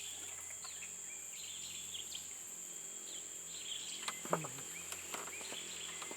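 Outdoor ambience of insects and birds: a steady high insect drone, with short bird chirps throughout and a couple of faint clicks about four and five seconds in.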